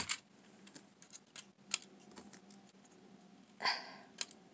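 Plastic LEGO bricks being handled, pulled apart and pressed together: scattered light clicks, a brief rustle about three and a half seconds in, then a sharper click.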